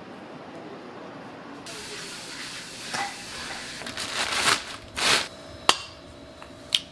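Kitchen handling sounds: a few short swishing noises and a sharp click. Near the end an egg is tapped against the rim of a stainless steel mixing bowl, which rings briefly.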